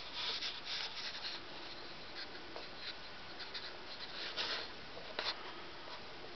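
Scratchy rubbing and handling noises in irregular short bursts, with one sharp click about five seconds in.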